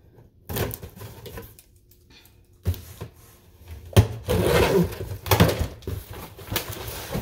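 Cardboard shipping box being opened by hand: rustling and tearing of the cardboard flaps, with irregular knocks and thumps against the box, the loudest about four seconds in, followed by a spell of dense rustling.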